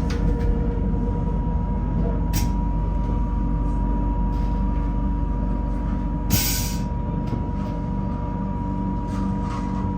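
Regional passenger train running, heard from inside the carriage: a steady low rumble of the wheels on the rails with a thin steady high tone over it. There are short hissing bursts about two seconds in and again, longer, a little past six seconds.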